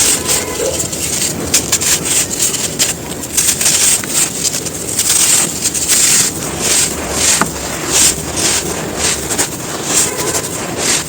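Dry, crispy sand clumps crumbling, with a steady gritty crackle and crisp crunches about every half second to a second.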